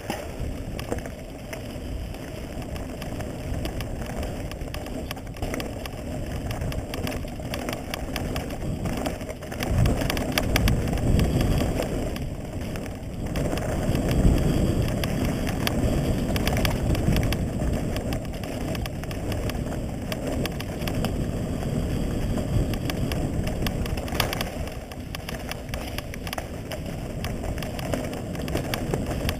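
Mountain bike riding fast down a gravel and dirt trail: a continuous rush of wind on the action camera's microphone with tyre noise and the bike's clattering and rattling over rough ground. It grows louder from about ten seconds in for several seconds.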